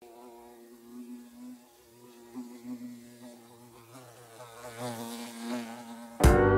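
A bumblebee buzzing, its pitch wavering up and down and the buzz growing louder over the last couple of seconds. Loud guitar music cuts in suddenly just before the end.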